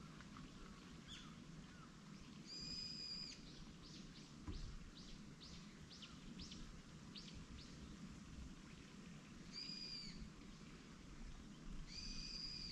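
Birds calling: one repeats a short, steady whistled note three times, and a run of quick falling chirps comes in between, about two a second.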